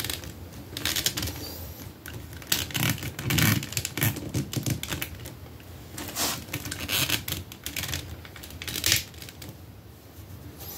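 Irregular plastic clicks and handling noise from a large Masterworks Sentinel action figure as its arm and hand joints are moved into a pose by hand.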